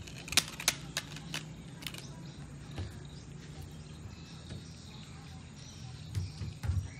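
A quick series of sharp plastic clicks as a toy bubble wand is worked in and out of its soap-solution bottle, over a steady low hum. A few dull thumps follow near the end.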